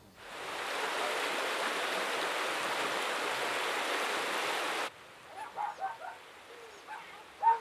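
Steady rushing of running water, like a stream, that cuts off abruptly about five seconds in; then a few faint short chirps.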